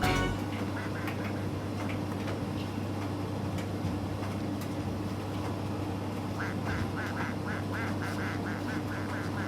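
Miele T5205 tumble dryer running with its door open, a steady motor hum. From about six seconds in, a rhythmic squeak comes in about three times a second.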